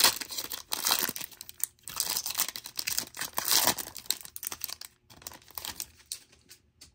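Trading-card pack wrapper being torn open and crinkled by hand. The crackling is densest for the first few seconds, then thins out.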